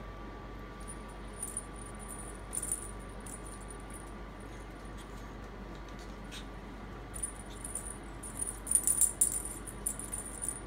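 Small bells jingling inside hanging plastic ball toys as puppies knock and tug at them: a few brief shakes in the first seconds, then a longer, louder spell of jingling from about seven seconds in.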